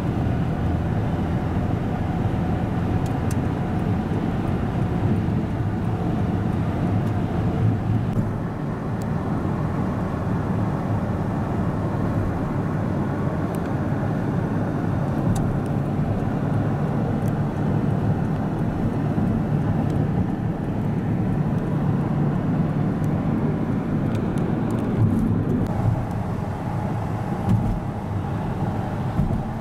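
Steady road noise inside a car driving on a highway, the tyre and engine rumble heard through the cabin.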